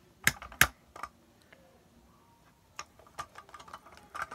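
Clicks and ticks of typing on an iPhone 11 Pro Max touchscreen. Two loud sharp clicks come close together near the start, then lighter, irregular taps follow.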